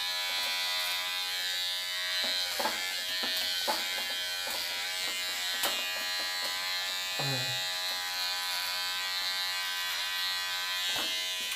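Unix electric hair clipper running with a steady buzz while trimming hair at the back of the head, with occasional short crackles.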